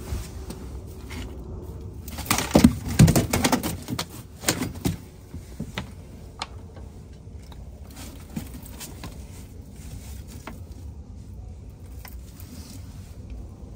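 A flurry of sharp knocks, slaps and rattles lasting about three seconds, starting a couple of seconds in, then a faint steady low background with a few scattered clicks.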